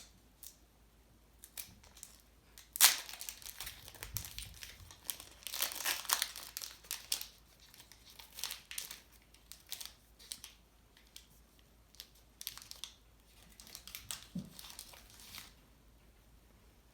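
A baseball card pack's wrapper being torn open and crinkled by hand, with a sharp tear about three seconds in and bursts of crackling that die away near the end.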